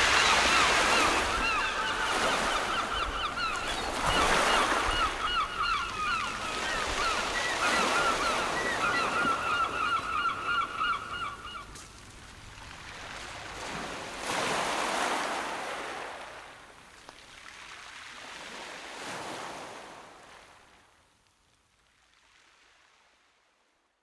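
Sea waves breaking and washing in, swelling every four or five seconds, with gulls calling in quick repeated series over the first half. The surf fades away near the end.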